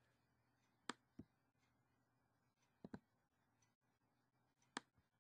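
Faint computer mouse button clicks against near silence: two clicks about a second in, a quick pair near three seconds, and a single click near the end.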